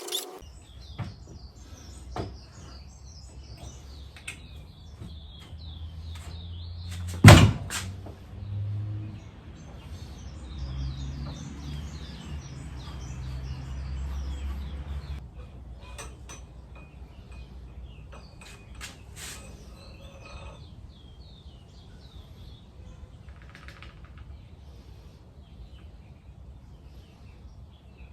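Small birds chirping and twittering, with scattered clicks and knocks of work on a bench and one loud thud about seven seconds in.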